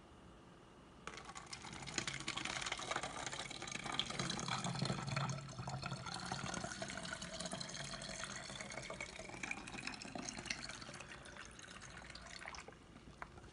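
Water poured from a plastic container through a funnel into a plastic water bottle, filling it: a steady pouring, trickling sound that starts about a second in and stops shortly before the end.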